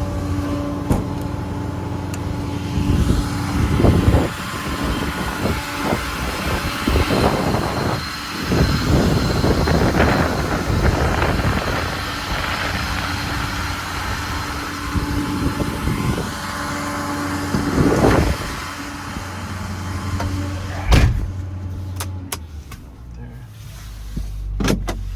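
The 2008 Ford F-550's 6.4-litre Power Stroke diesel runs with a steady hum, and louder mechanical noise swells up every few seconds. A single sharp knock comes about 21 seconds in, and after it the sound is quieter.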